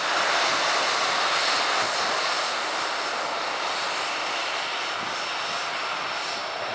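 Boeing 737-400's CFM56 turbofan engines running at taxi thrust as the jet rolls along the taxiway: a steady rush with a faint high whine, slowly getting quieter.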